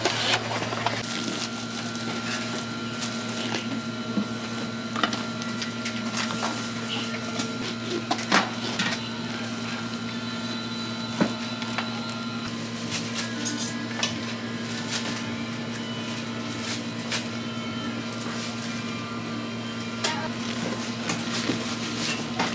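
A steady electric machine hum with scattered light clicks and knocks.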